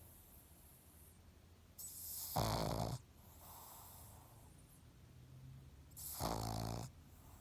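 Pug snoring: two loud snores about four seconds apart, each lasting about a second, a low buzzing snore with a breathy hiss. Softer breathing can be heard between them, and the snores sound almost human.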